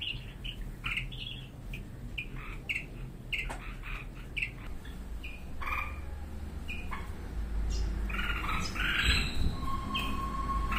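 Red-whiskered bulbul parents and their fledgling calling back and forth with short, repeated chirps. The calls grow louder and busier in the last few seconds as an adult comes down beside the chick: the parents are coaxing the fledgling to leave with them.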